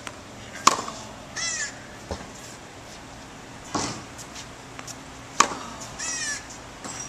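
Tennis racket striking the ball on groundstrokes: three sharp hits, about a second in, near the middle and about two-thirds through. Two short high squeals, each about a third of a second, follow the first and last hits.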